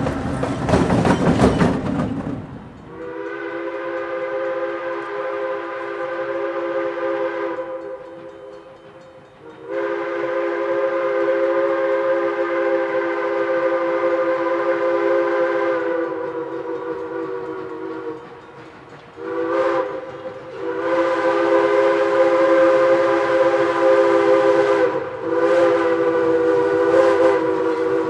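A diesel locomotive rumbling past close by, cut off about two seconds in. Then the multi-chime steam whistle of Central Railroad of New Jersey No. 113, a 1923 ALCo 0-6-0 switcher, blows for a grade crossing: two long blasts, a short one, then a long one, each a steady chord of several tones.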